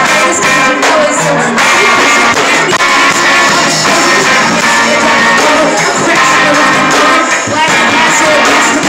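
A rapper freestyling into a microphone over loud backing music.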